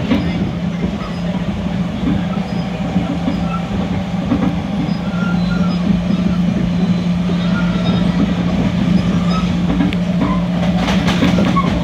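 Metro-North commuter train heard from inside the passenger car while running at speed: a steady rumble of wheels on the track with a constant low hum.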